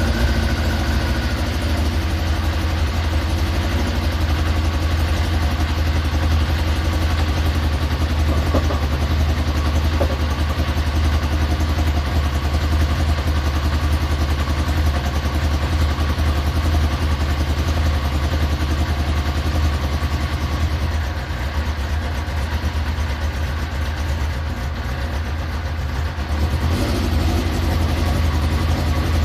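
Multi-carburettor engine running steadily while warming up to temperature before its carbs are synchronised. It eases a little past the middle and picks up again near the end.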